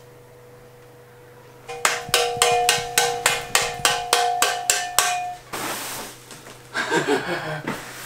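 Powder-coated NS Decade jump bike frame struck repeatedly, about four knocks a second for some three seconds, the tubes ringing with each hit, to shake loose sandblasting grit trapped inside. A brief hiss and some rattling follow near the end.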